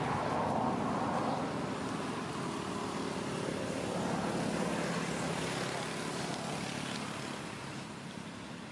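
Steady outdoor background noise: a continuous rushing hiss and rumble with no clear animal calls, a little louder at the start and easing off near the end.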